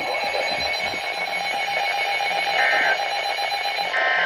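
Emergency Alert System broadcast tones: a steady electronic alert tone over hiss that stops near the end, with two short bursts of warbling digital data tone about a second and a half apart. These are the SAME code bursts that mark the start or end of an alert message.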